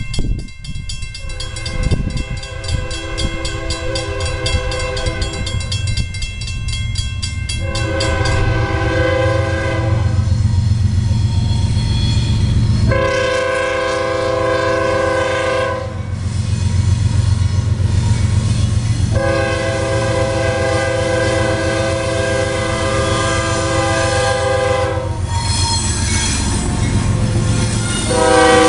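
A grade-crossing warning bell rings rapidly for the first eight seconds or so, over the rumble of an approaching CSX diesel freight locomotive. From about eight seconds in, the locomotive's air horn sounds a series of loud chord blasts for the crossing, the longest lasting about six seconds.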